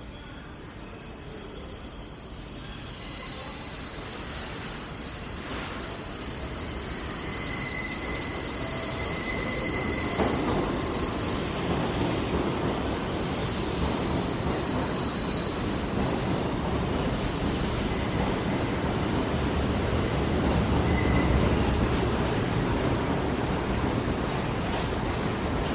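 Subway train on a station platform, its steel wheels squealing in long, high, steady tones against the rails as it comes in from about two seconds in, over a low rumble that builds toward the end.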